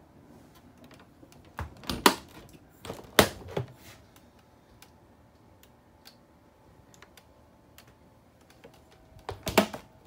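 Sharp clicks and knocks in three short clusters, about two, three and nine and a half seconds in: doors and latches being opened and shut.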